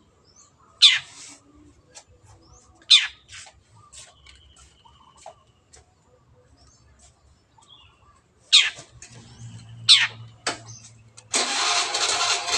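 Long-tailed shrike giving four loud, harsh calls, each a quick downward sweep in pitch, with faint softer notes between. Near the end a sudden dense, harsh noise with rapid pulses takes over.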